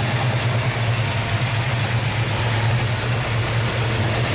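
1970 Plymouth 'Cuda's 440 Six Pack big-block V8 idling steadily, a strong, even low hum.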